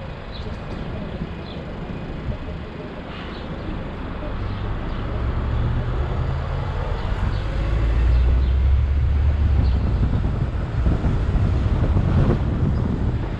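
Car driving along a town street, with road noise and a low rumble of wind on the microphone. The rumble grows louder from about four seconds in as the car picks up speed on a straight road.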